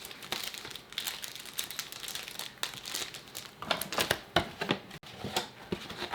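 Plastic wrapping on a box of trading-card packs crinkling and tearing as it is handled and pulled open, a run of irregular sharp crackles.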